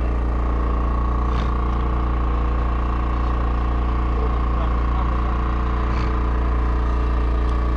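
A boat's engine running steadily with a low, even hum, and a couple of faint clicks over it.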